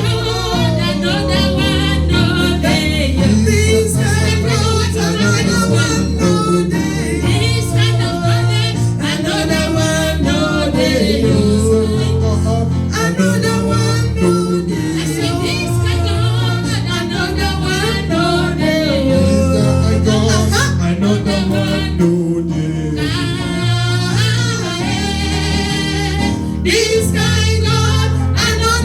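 Live gospel worship music: singing over a steady instrumental backing with a prominent bass line.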